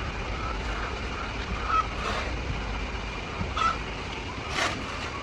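Hens clucking and giving several short, sharp squawks over a steady low rumble.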